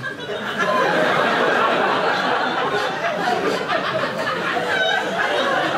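A room full of people laughing.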